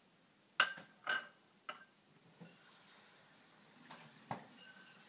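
Three quick metallic clinks in the first two seconds, then a faint, steady sizzle from the cheddar cheese soup and salsa mixture heating in a stainless steel saucepan, with one more click near the end.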